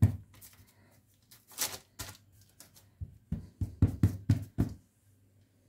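Hands pressing and patting a slab of dried-apricot, nut and coconut mixture on baking paper: scattered short taps and paper rustles, with a quick run of them about three to four and a half seconds in.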